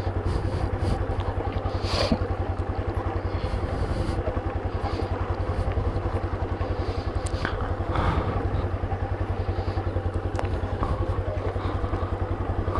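Small motorcycle engine running steadily at low riding speed, its exhaust pulsing evenly, with a few clattering knocks from the bike jolting over a rough, stony dirt road.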